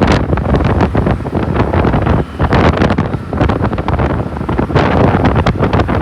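Wind buffeting the microphone of a moving vehicle on a highway, loud and gusty, over road and vehicle noise.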